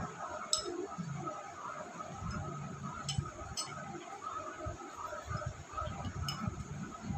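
A few light, sharp clinks, four in all and spread out, over steady low background noise.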